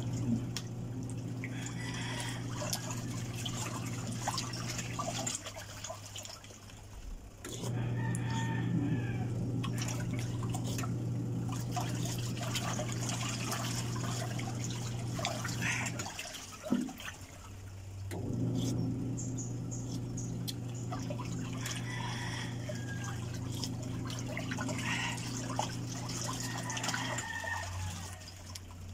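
Noodle soup being eaten with a spoon: slurping and sipping with light clicks of the spoon against the bowl. A steady low hum runs underneath and drops out twice for about two seconds.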